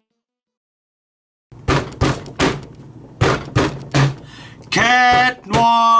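A short segment-intro jingle: after about a second and a half of silence, a run of sharp percussive hits with a low thud, then held pitched notes starting near the end.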